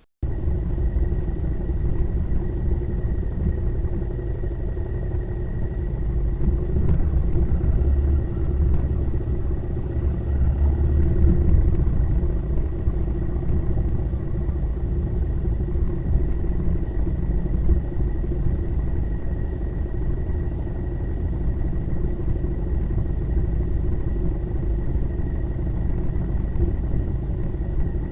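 Steady low engine and road rumble of a vehicle on the move, with a thin steady high tone above it; it starts abruptly and swells a little about a third of the way in.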